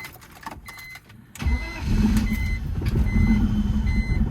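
BMW E46 inline-six engine cranking and firing up about a second and a half in, then running, during a test start after a new spark plug and coil pack were fitted to cylinder 6 to cure a misfire. A dashboard warning chime beeps repeatedly throughout.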